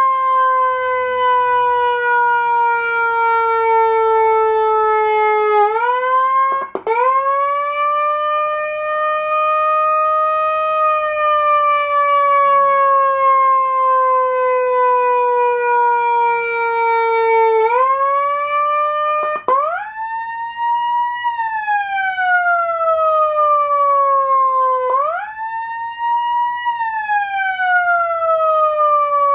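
150HX 150-watt electronic siren sounding a slow wail through its speaker. Each cycle is a quick rise in pitch and a long, slow fall; the cycles come every several seconds and grow shorter in the last third.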